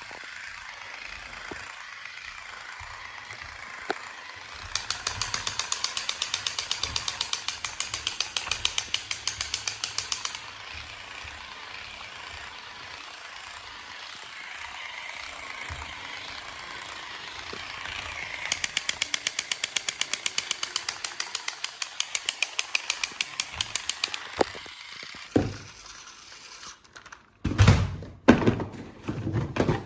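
Battery-powered toy mechanism running with a steady whir, breaking twice into a fast, even rattle of about eight clicks a second lasting several seconds each time. Loud, irregular handling knocks near the end.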